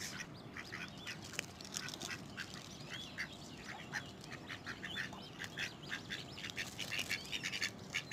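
Ducks quacking, a quick run of short calls, from mallards.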